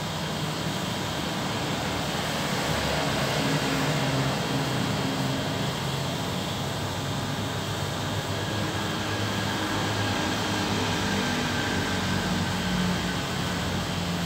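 A steady mechanical drone, a low hum under an even hiss, swelling slightly a few seconds in.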